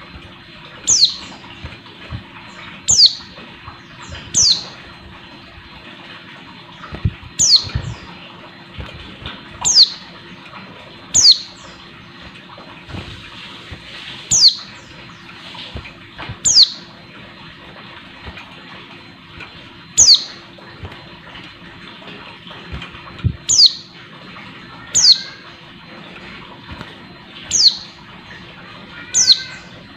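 Caged female white-eye (pleci) calling: single sharp, high notes, each sweeping quickly downward, repeated every two seconds or so, the call of a female in breeding condition calling a male. Soft thumps and flutters of the bird hopping and flapping about the cage come in between.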